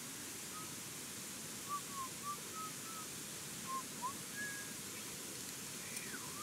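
About ten short, soft whistled chirps at irregular intervals, some sliding up or down, over a steady hiss.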